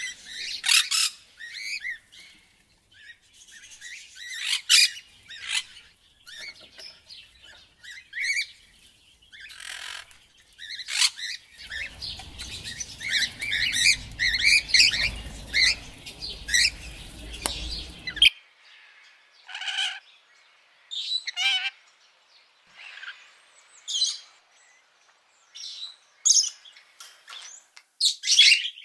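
Parrots chirping and squawking in short, sharp, irregular calls, some of them rapid chattering runs. Midway, a stretch of dense chattering sits over a low background rumble that cuts off suddenly.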